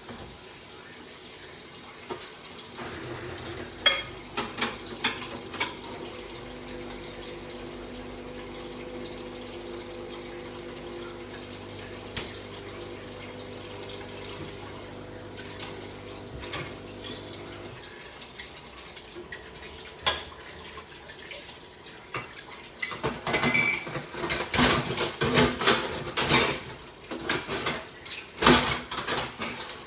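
Dishes, pots and cutlery clinking and clattering in a kitchen. A steady low hum runs through the first half and then stops, and near the end the clatter becomes dense and busy.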